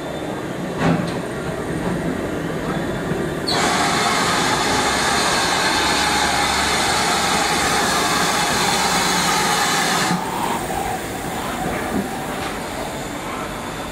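GWR steam locomotive No. 9351 with a loud, steady hiss of escaping steam that starts sharply about three and a half seconds in and cuts off abruptly some six seconds later, over a low rumble.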